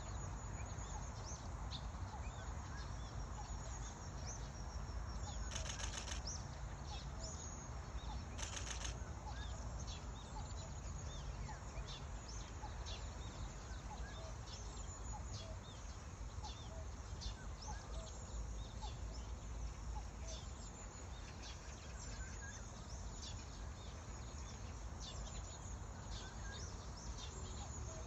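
Cuckoo calling among many small birds chirping, with wind rumbling on the microphone throughout and two brief crackles about six and nine seconds in.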